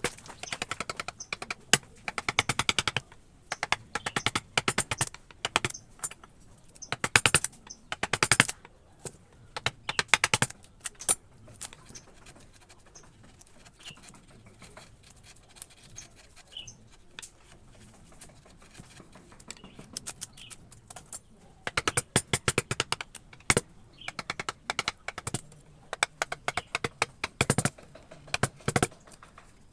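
Quick series of sharp taps from a mallet driving a wood-carving chisel into wood, in bursts, with a pause of several seconds in the middle.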